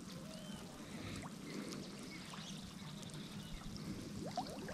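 Faint trickling and lapping of water, with a few small ticks.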